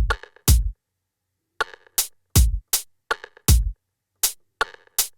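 Electronic drum samples triggered from Native Instruments Maschine and played in live: deep kick drums with long low tails alternating with sharper snare or clap hits, with a pause of about a second near the start before the pattern picks up again.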